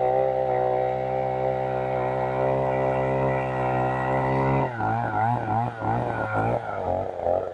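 Oshima 2P earth auger's 49.9 cc single-cylinder two-stroke engine running steadily as the auger bores into the soil. A little over halfway through, its note turns uneven and wavering as the load on the bit changes.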